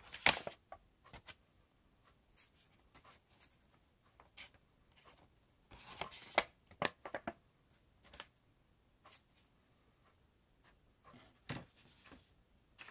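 Origami paper rustling and crinkling as a folded paper boat is handled and pulled open, in short scattered bursts that are busiest near the start and around the middle.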